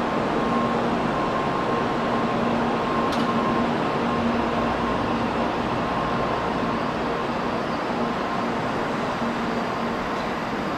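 N700A Shinkansen train pulling out along the platform, a steady rush of running noise with a faint steady electric hum underneath.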